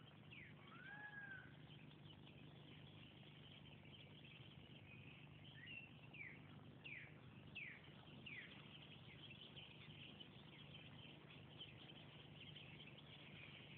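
Faint animal calls over a low steady hum: one rising-and-falling call about a second in, then a run of short, quick falling chirps about six to eight and a half seconds in.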